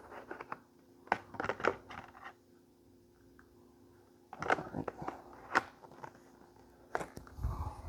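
Hard plastic clicks, knocks and scrapes from handling and fitting together the parts of a cordless stick vacuum, in a few short clusters, with a low thump near the end.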